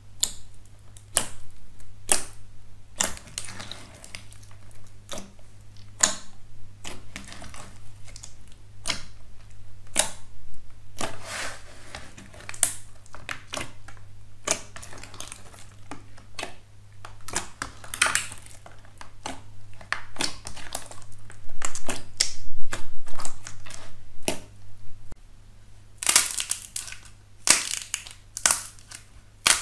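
Hands pressing and kneading thick slime in a plastic tray: a dense, irregular run of sticky clicks and pops as air pockets in the slime burst, with louder crackling near the end.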